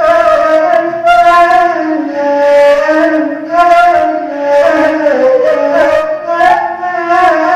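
Arabic ney, an end-blown reed flute, played solo in a free improvisation: sustained breathy notes sliding and stepping between pitches, with brief dips between phrases. The tone is dry, without added effects.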